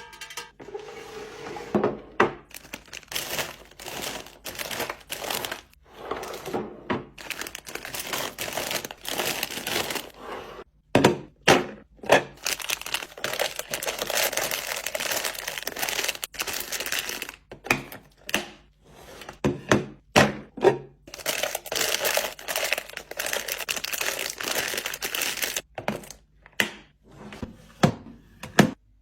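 Plastic food packaging crinkling and rustling in long stretches as it is handled, with sharp knocks and clicks of items and containers being set down.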